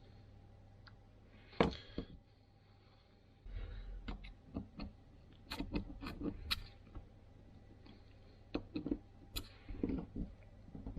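Scattered clicks and light knocks of small metal and rubber parts being handled and fitted during reassembly of a clutch master cylinder. The sharpest click comes about one and a half seconds in.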